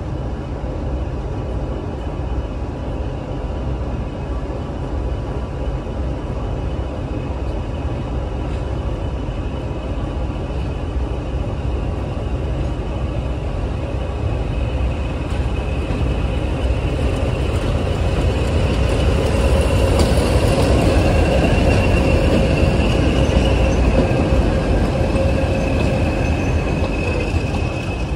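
A pair of diesel locomotives hauling a passenger train approaches and draws past with a steady engine rumble and a held whine, growing louder through the second half, then the coaches roll by.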